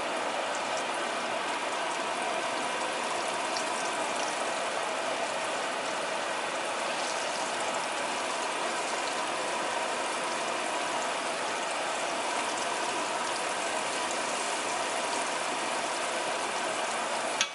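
Flour-dredged pork chops frying in vegetable oil at about 350°F in a cast-iron skillet: a steady, dense crackling sizzle.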